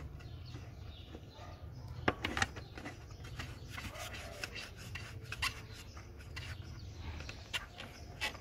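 Fingers rubbing and tapping a plastic grille panel, giving irregular clicks and short scrapes, over a steady low rumble.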